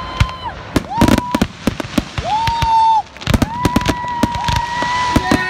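Fireworks display: aerial shells bursting in a rapid, irregular series of sharp bangs and crackles. Several long, steady high tones are held over the bangs.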